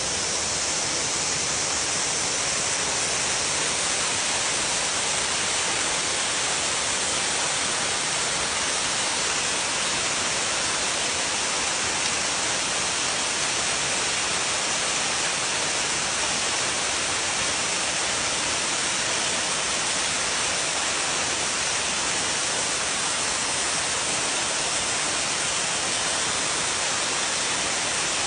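Waterfall pouring: a steady, even rush of falling and splashing water, heaviest in its high hiss.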